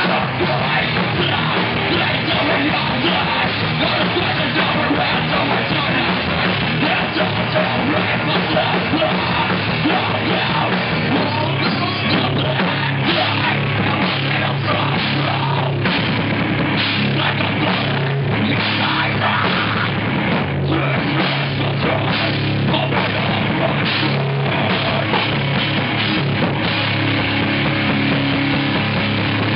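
Live heavy rock band playing loud and without a break: electric guitars, bass guitar and a drum kit.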